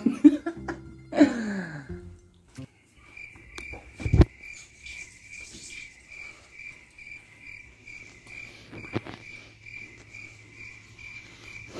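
Cricket chirping, a steady high chirp repeating about two to three times a second, the stock "crickets" effect for an awkward silence. It starts about three seconds in, after a short voice sound, and a single loud thump comes about four seconds in.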